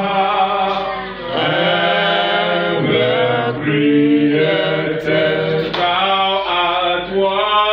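A man singing a praise worship song into a microphone, amplified through a loudspeaker, in long held notes that slide from one pitch to the next.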